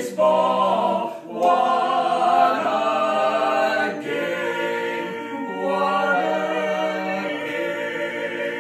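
A vocal quartet singing a cappella in harmony, drawing out the song's closing phrases in long held chords.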